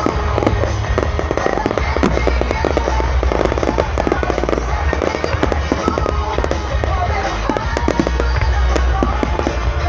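A fireworks display going off in a rapid, dense barrage of bangs and crackles, with a low rumble underneath. Pop music plays beneath it.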